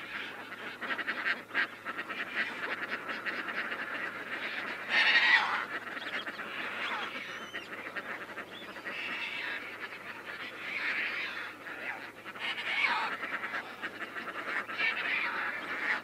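Caspian terns calling in a nesting colony: many harsh, rasping calls overlap in a steady din, with louder separate calls about five seconds in and several more later. The near calls come from an adult tern scolding chicks that stray from the nest.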